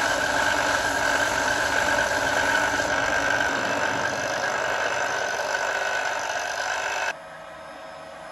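Ryobi bench belt sander running steadily, with an acrylic block held against its moving belt at first. The machine noise cuts off abruptly about seven seconds in.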